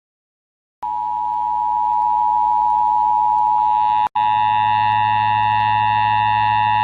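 Emergency Alert System attention tone, a loud steady electronic tone, starting just under a second in. It drops out for an instant about four seconds in and carries a low hum after that.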